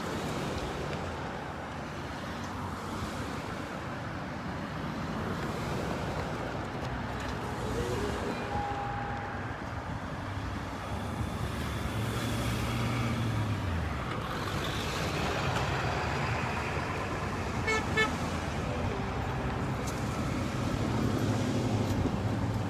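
Line of cars and trucks driving past with engines running, and a few short horn toots.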